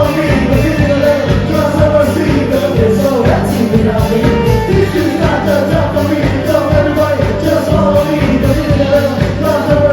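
Upbeat pop-rock music with a singing voice and a steady beat.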